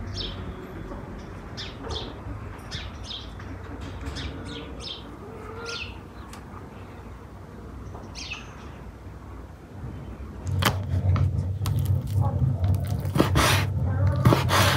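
Small birds chirping on and off. About ten seconds in, a kitchen knife starts slicing raw chicken fillet on a wooden cutting board, with repeated knocks of the blade on the board.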